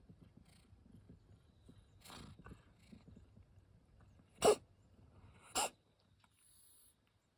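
A pet animal sneezing twice, about a second apart, the first sneeze the louder.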